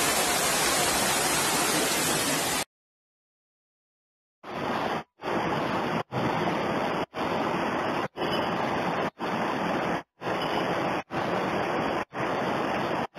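Floodwater rushing, a steady roar of water through a street. About two and a half seconds in it cuts to dead silence for nearly two seconds. The rushing water then returns, broken by brief dropouts about once a second.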